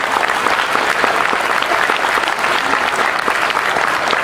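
Audience applause: many people clapping at an even level.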